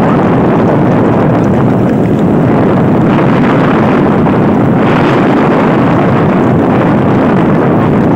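Loud, steady wind rush on the microphone mixed with the running of the motorcycle carrying the camera.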